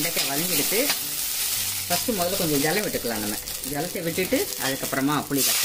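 Okra frying in oil with mustard seeds and dried red chillies in a steel kadai, sizzling steadily while a steel ladle stirs it around the pan.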